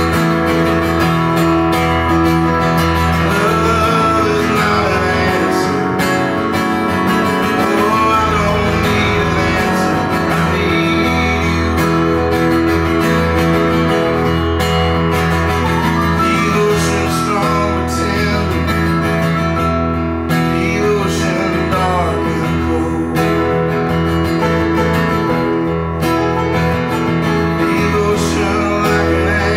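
Live song performance: a strummed acoustic guitar with keyboard accompaniment, and a man singing at times.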